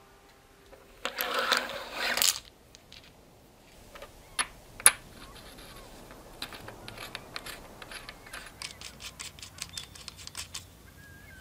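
Small steel tool tips clattering against one another on a wooden bench, then two sharp metallic clicks, the second the loudest. A run of small quick ticks follows as a threaded tip is screwed into a metal tool handle.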